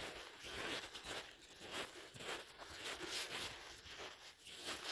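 Footsteps on snow, a short noisy step about twice a second.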